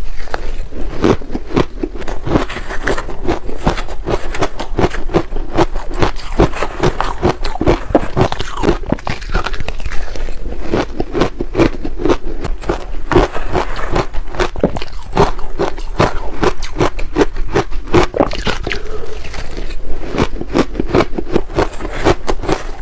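Ice being chewed close to the microphone: loud, rapid, irregular crunching that goes on without a break.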